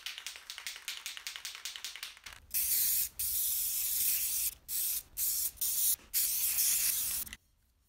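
Aerosol spray paint can: first a quick rattling, typical of the can being shaken, then a series of hissing sprays broken by short pauses, ending abruptly about seven seconds in.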